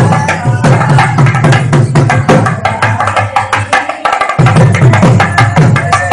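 Loud percussion music: rapid, dense drum strokes over a sustained low tone that breaks off briefly about four seconds in.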